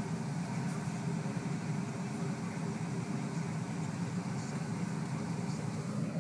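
Vehicle engine and road noise heard from inside the cab while driving, a steady low drone.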